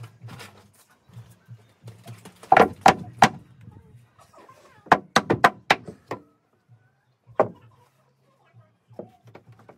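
Sharp knocks and clanks from a metal wrench and plywood speaker-box panels being handled: three strikes about two and a half seconds in, a quicker run of about six near the middle, then single knocks later. A low hum comes and goes underneath.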